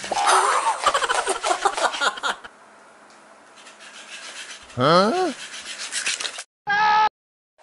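Electric flopping-fish cat toy, a plush fish flapping its tail and slapping the floor in rapid, irregular strokes, with a quieter pause in the middle. About five seconds in a short sliding tone sounds, and a brief steady tone comes just before the sound cuts out.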